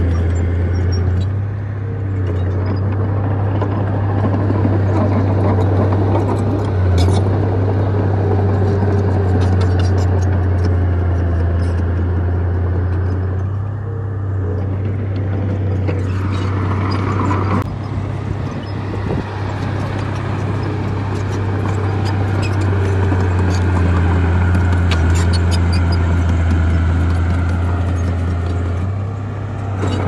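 Small crawler bulldozer's diesel engine running steadily under load as it pushes dirt and rock, with short clanks from the tracks and rocks. A brief higher whine comes about halfway through.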